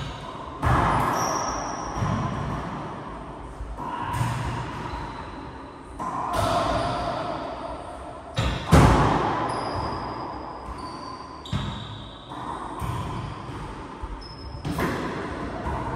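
Racquetball rally: sharp smacks of the ball off racquets and the court walls about every one to two seconds, each ringing on in the enclosed court's echo. Brief high sneaker squeaks come between hits.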